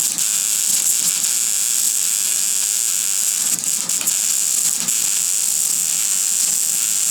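Stick-welding arc running steadily, a continuous crackling hiss.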